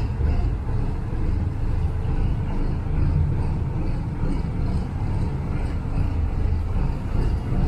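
Diesel engine of a canal cargo barge (a Chinese 'putt-putt' boat) running as the boat passes close by, a steady low rumble.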